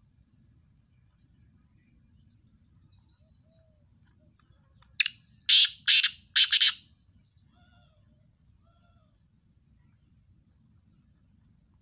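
Caged male black francolin (kala teetar) giving its loud, harsh call: four grating notes in quick succession about five seconds in, lasting under two seconds. Faint high chirps of small birds come before and after it.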